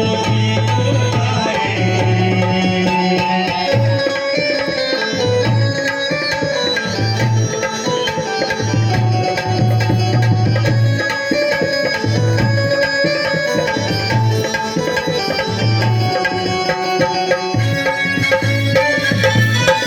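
Music with hand-drum percussion and a line of repeated, held low bass notes under a dense melody.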